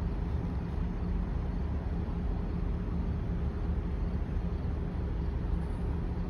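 Freight train of covered hopper cars rolling past: a steady low rumble of steel wheels on the rails.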